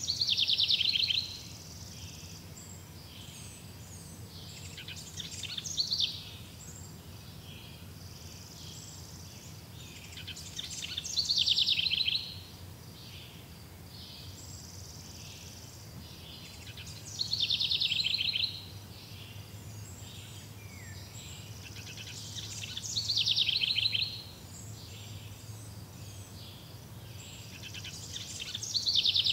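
Outdoor ambience: a high, rapid trilling call swells and then cuts off sharply, about every five to six seconds, over a steady low hum.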